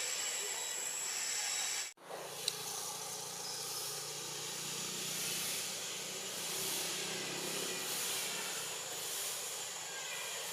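Steady hissing outdoor background noise, broken by a brief dropout about two seconds in and a single click just after.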